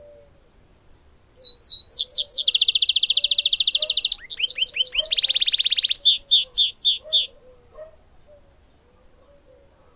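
Caged goldfinch × canary hybrid singing one song of about six seconds, starting about a second and a half in: a few opening notes, a long rapid high trill, a quick run of rising notes, a lower rapid trill, then a string of separate chirps.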